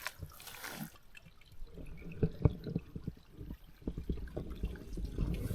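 Spring water running and dripping with low, uneven gurgling and short knocks, and a louder low rumble near the end.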